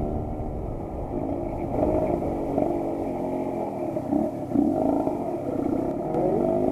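Suzuki TS125's single-cylinder two-stroke engine running, its pitch rising and falling as it is revved.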